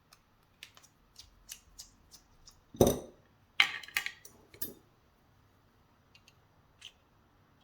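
Small metallic clicks and taps of a pin-tumbler lock cylinder being taken apart by hand, with one heavier knock about three seconds in and a quick run of louder clicks just after.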